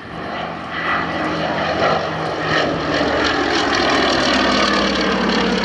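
Westland Lysander's radial engine and propeller during a low flypast, getting louder about a second in and dropping in pitch as the aircraft passes.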